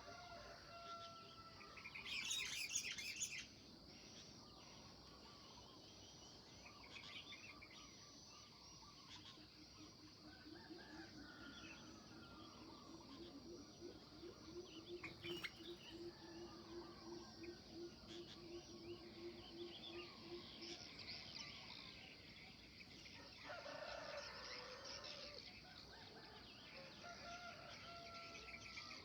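Faint dawn chorus: birds chirping over a steady, high insect drone. A loud burst of high chattering birdsong comes a couple of seconds in, and a low, rapid trill runs for about ten seconds in the middle.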